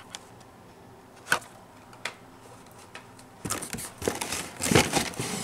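Handling of blister-carded Hot Wheels cars: a few light clicks of the plastic packaging, then, about three and a half seconds in, a run of rustling and scraping as stacked cards are slid out of the cardboard case.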